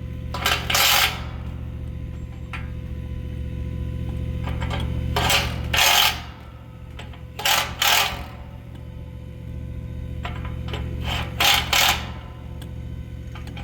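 Hydraulic clamping tool being worked to close a Victaulic pipe coupling: short metallic clinks and hisses, mostly in pairs, every two to four seconds, over a steady low machinery hum.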